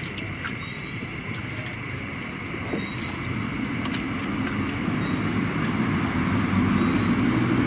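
A motor engine running steadily and growing louder, as of a motorbike or motorboat drawing near.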